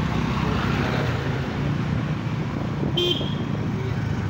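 Motorcycle engine running steadily under way, with road and traffic noise, and one short high-pitched horn beep about three seconds in.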